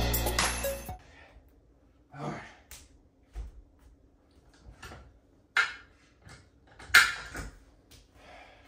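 Music fading out in the first second, then a few scattered knocks and clatters, the loudest about seven seconds in: dumbbells being set down on a hardwood floor and an adjustable weight bench being handled.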